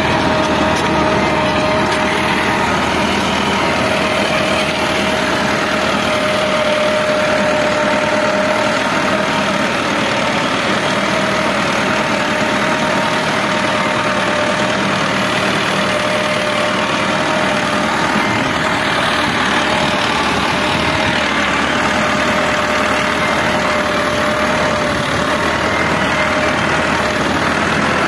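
Massey Ferguson 385 tractor's four-cylinder diesel engine running steadily, with a constant whine riding over it.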